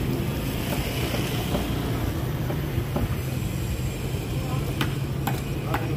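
A large knife slicing raw tuna on a wooden chopping block, with a few sharp taps of the blade on the block near the end, over a steady low engine hum.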